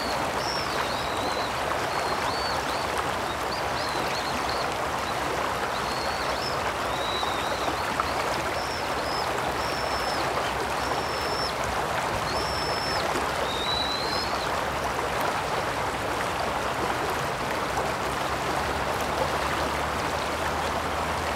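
Shallow stream running steadily over stones, an even rushing babble. During the first two-thirds a bird sings a string of short, high whistled notes above the water noise.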